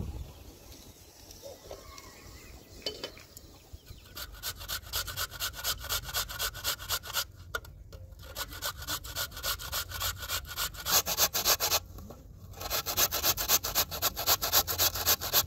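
Raw potatoes being grated on a metal box grater, a rasping scrape about three strokes a second. It starts about four seconds in and breaks off twice briefly.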